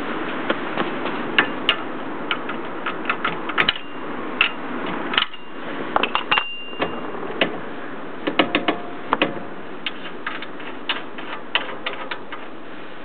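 Irregular metallic clicks and clinks of hand tools working steel front-axle parts, with a couple of brief ringing notes, over a steady hiss.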